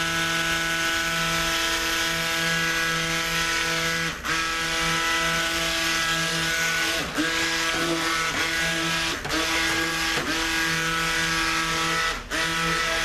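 A pink Cuisinart Smart Stick immersion blender running steadily with a motor hum, submerged in soap batter of oils and lye water as it mixes the batch. The hum dips briefly about five times as the blender is moved through the batter.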